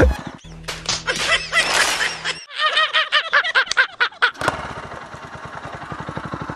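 Two men laughing hard in an inserted clip. About four and a half seconds in, this gives way to a Motorstar motorcycle engine running at idle with a steady, even beat.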